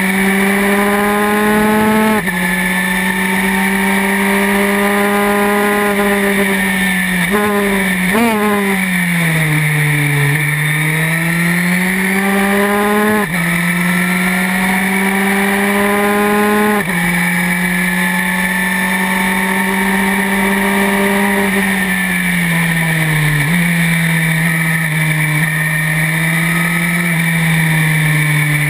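Historic Formula 3 racing car's engine heard from on board, running hard through the gears: upshifts drop the revs about 2 and 7 seconds in, quick downshifts with throttle blips follow around 8 seconds, and the note sinks low through a slow corner near 10 seconds before climbing again with further upshifts around 13 and 17 seconds. It eases and steps down again in the last few seconds, with wind rushing over the microphone throughout.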